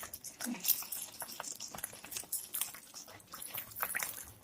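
Adhirasam dough deep-frying in hot oil: irregular, fast crackling and popping of sizzling oil.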